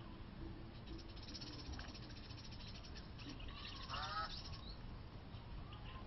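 Birds calling: fast, high twittering about a second in and again near four seconds, and a short nasal, honking call of several quick falling notes about four seconds in, over a steady low rumble.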